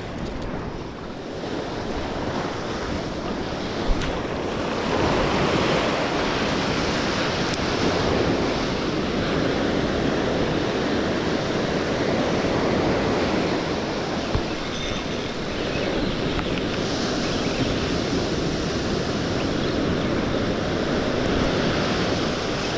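Ocean surf breaking and washing up a beach, swelling and easing every few seconds.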